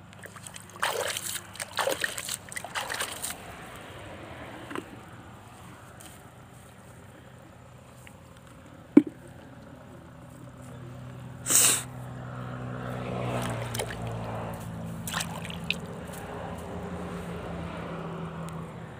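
Small live fish splashing in a plastic bucket of water as they are dropped in by hand, in a quick cluster of splashes in the first few seconds, with a sharp knock and another loud splash later. From about halfway a low steady hum sets in beneath.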